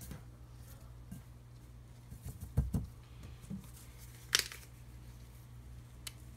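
Quiet kitchen handling noises over a low steady hum: a few dull thumps about two and a half seconds in, then a sharp click a little after four seconds and a smaller one near the end.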